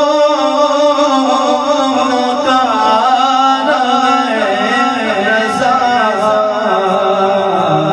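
A man sings an Urdu naat solo into a microphone, drawing out long, wavering melismatic notes. A heavy echo effect is on the voice.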